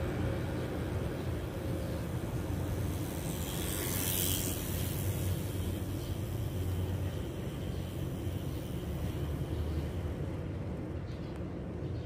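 Steady low rumble of outdoor background noise, with a brief hiss rising and fading in the high range about four seconds in.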